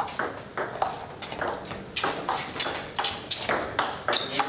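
Table tennis rally: the celluloid ball clicks off the rackets and bounces on a Donic table in quick, irregular clicks.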